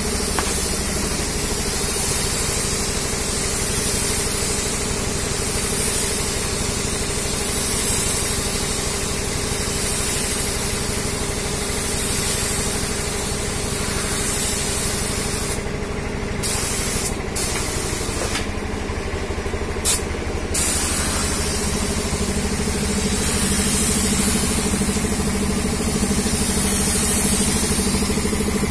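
Paint spray gun hissing in repeated passes, swelling and fading every couple of seconds, with the spray cut off briefly a few times about two-thirds of the way through. A steady low motor hum runs underneath.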